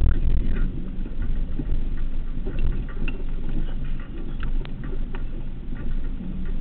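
Truck engine and drivetrain rumbling inside the cab as the truck drives slowly over a muddy dirt track, with a few light knocks and clicks.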